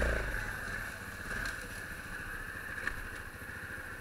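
Quad ATV's single-cylinder engine running at low speed while the machine rolls over a leaf-covered trail, louder in the first moment and then steady, with a few light knocks.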